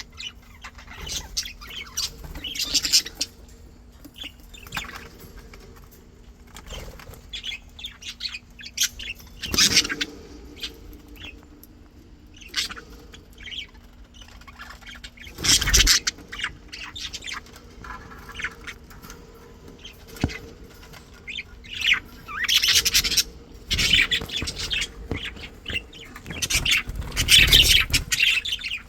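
Pet budgerigars chirping and chattering on and off, with louder squawks about halfway through and again near the end. A faint steady hum runs underneath.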